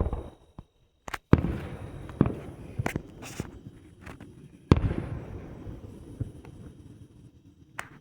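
Fireworks exploding overhead: a run of sharp bangs, the loudest about a second and a half in and again near five seconds, each trailing off in a long rumbling echo, with a last crack near the end.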